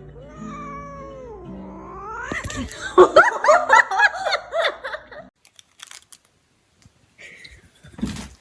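A cat yowling: a long wavering call, then a fast run of loud, short rising-and-falling cries about three seconds in that cuts off abruptly. A sharp knock near the end.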